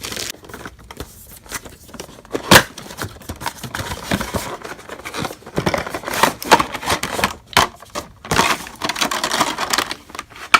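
Action-figure packaging being opened by hand: irregular rustling, crinkling and tearing with small clicks, and one sharp snap about two and a half seconds in.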